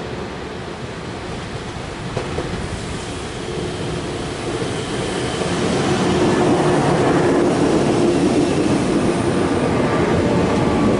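A 413 series electric multiple unit running in along the platform: the rumble of its wheels on the rails grows louder about halfway through as the cars draw level, then holds steady, with a faint hum underneath.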